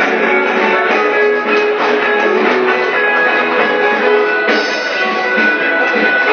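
Live jazz band with an electric guitar playing lead over a drum kit.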